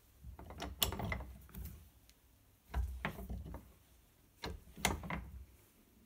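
Metal tools of a Victorinox Swiss Army pocket knife being worked open and snapped shut by hand: three bursts of sharp metallic clicks and rattles with dull knocks from handling.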